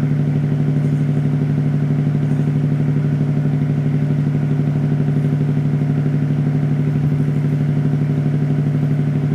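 A vessel's engine running steadily with an even, regular throb and a low hum.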